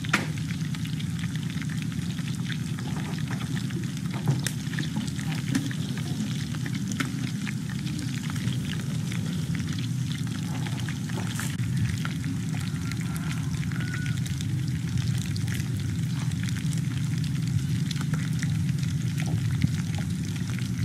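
Battered frog pieces frying in oil in a wok over a wood fire: a steady sizzle with scattered crackling pops.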